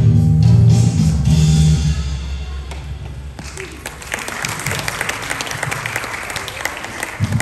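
The hymn's instrumental accompaniment ends on a held low chord that dies away about two seconds in. About a second and a half later, audience applause starts and keeps going.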